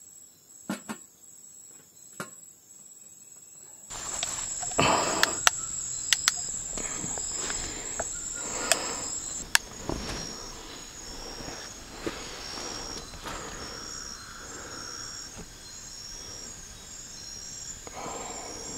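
Forest insects at dusk, crickets among them, keeping up a steady high-pitched trill with a repeating pulsed chirp, plus a few scattered sharp clicks. About four seconds in the sound jumps abruptly louder.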